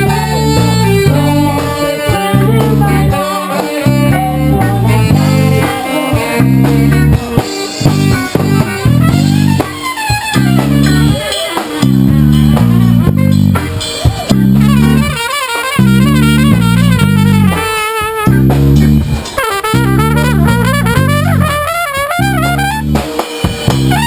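Live band music: drum kit and bass guitar keeping a steady beat with brass and keyboard. In the second half a trumpet plays lead over the band, its held notes wavering.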